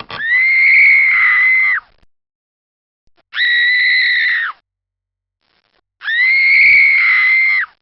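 Three high-pitched horror-film screams, each held at a steady pitch for about a second and a half before dropping away at the end, with short silences between them.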